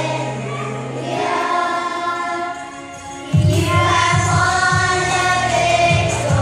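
Children's choir singing with instrumental accompaniment. About three seconds in, the music gets suddenly louder as a strong, pulsing bass comes in.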